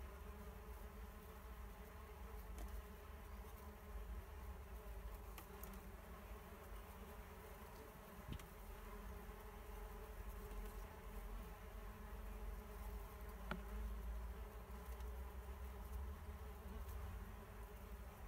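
Many male mason bees buzzing as they fly back and forth around a bee hotel, a steady overlapping hum of wingbeats with a low rumble underneath. The males are swarming at the nest-tube entrances, shoving rivals aside while they wait for the females to emerge.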